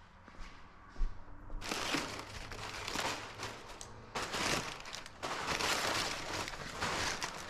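Packing material crinkling and rustling in several bursts, starting about a second and a half in, as laser-cut metal parts are unwrapped from their shipping box.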